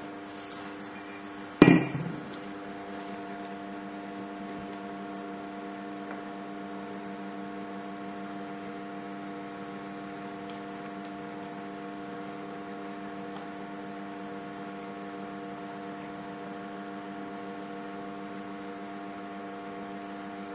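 A single clang of a heavy enamelled cast-iron casserole lid set down, with a brief ring, about two seconds in. A steady electrical hum runs underneath.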